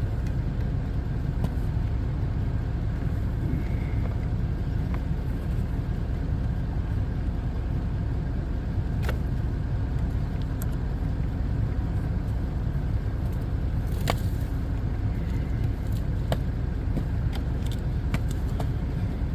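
Steady low rumble, with a few light clicks and ticks from hand work on the door's handle parts.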